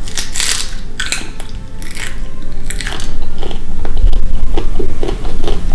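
A child biting into and chewing a dehydrated giant water bug: several crisp crunches over the first three seconds, then heavier, continuous chewing.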